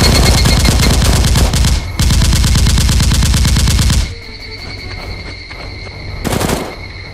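Rapid automatic gunfire sound effect: a machine-gun burst of fast, evenly spaced shots for about four seconds, with a brief break about two seconds in. It then stops and background music carries on, with one short loud burst near the end.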